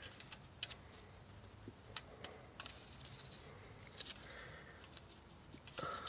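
Faint metallic clicks and scrapes of a failed roller rocker arm being worked out from under the loosened camshaft in a 3.6L Pentastar V6 cylinder head, with a short louder rustle near the end.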